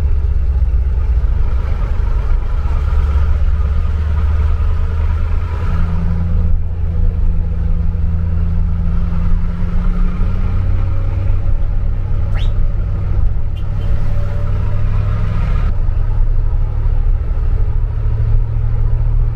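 Diesel engine of a 4x4 expedition truck running under load on a rough track, a loud low hum whose pitch steps up and down several times as the revs change.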